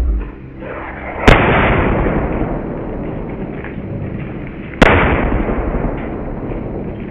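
Two firecracker bangs inside paint pots, about three and a half seconds apart. Each is a sharp crack followed by a long rumble that slowly dies away, over faint background music.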